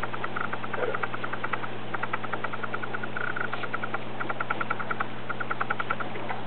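Newborn harlequin Great Dane puppy panting in quick runs of short breaths, over a steady low hum.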